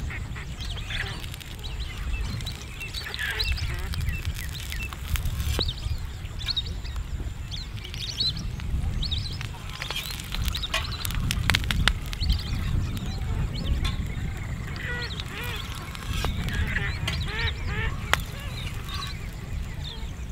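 Birds calling over and over, with duck-like quacks among them, over a steady low rumble; a few sharp clicks come in the middle.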